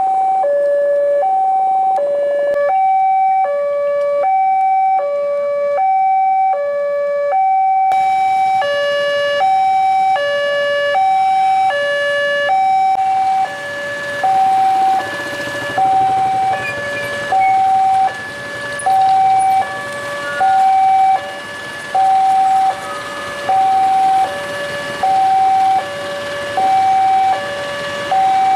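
Railway level-crossing warning alarm sounding a steady electronic two-tone chime, alternating high and low notes about once a second: the signal that a train is approaching and the barriers are down.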